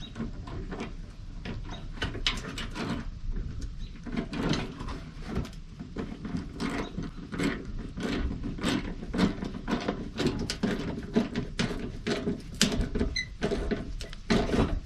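Irregular clicks, taps and light knocks of hand work on a truck fender, with the panel being shifted and its bolts snugged loosely to set the gap.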